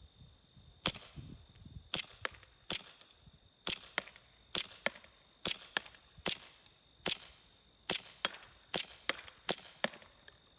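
Green-gas airsoft pistol firing 0.20 g BBs, about ten sharp shots roughly a second apart, each followed by a fainter click. Crickets chirp steadily underneath.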